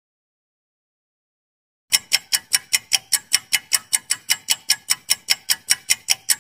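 Silence for about two seconds, then a ticking-clock sound effect for a quiz countdown timer: quick, even ticks, about five a second.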